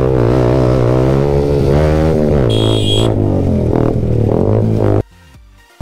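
Electronic background music: a steady low bass drone under a wavering synth line. It cuts out abruptly about five seconds in.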